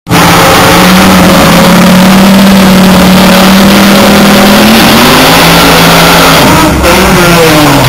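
Drag-racing engines, a Chevrolet V8 dragster against a Falcon, held at high revs on the start line, very loud. About five seconds in the pitch rises as the cars launch, breaks briefly and then falls away as they head down the strip.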